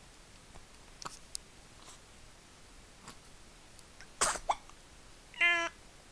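Hiccups: a sharp hiccup about four seconds in, a smaller one right after it, then a short, high, voiced 'hic' near the end. A few faint clicks come earlier.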